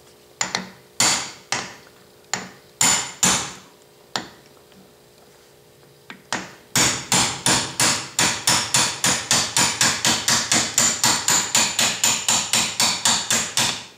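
Hammer tapping a gear shaft out of a South Bend 9-inch lathe's apron. First come a few spaced blows, then after a short pause a steady run of quick taps, about three or four a second, driving the shaft out.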